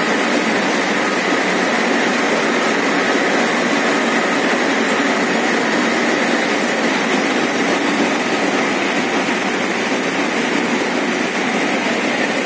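Tea-processing machinery running in a factory hall: a loud, steady mechanical din from the rotating drum and conveyor, with no pauses or changes.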